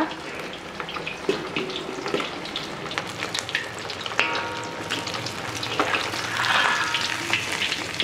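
Small whole fish deep-frying in hot oil in a wok, a steady sizzle thick with fine crackles and pops.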